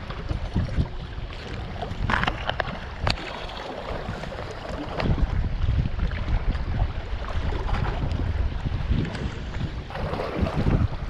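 Wind buffeting the microphone in uneven gusts, with a few sharp ticks about two to three seconds in.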